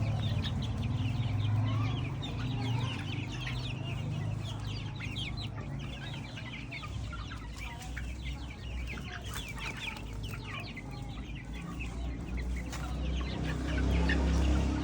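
A flock of chicks peeping continuously, many short high calls overlapping, over a low rumble that grows louder near the end.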